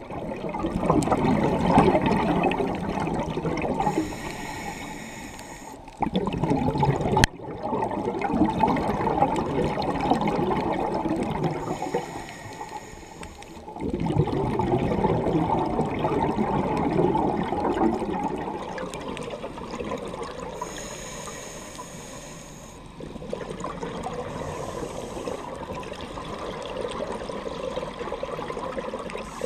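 Scuba regulator breathing recorded underwater: long spells of exhaled bubbles rumbling and gurgling, broken about every eight or nine seconds by a short hiss of inhalation through the regulator.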